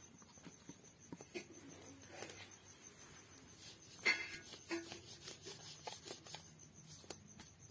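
Wooden rolling pin rolling out a small round of momo dough on a round stone rolling board: faint rubbing with scattered light knocks, the sharpest about four seconds in.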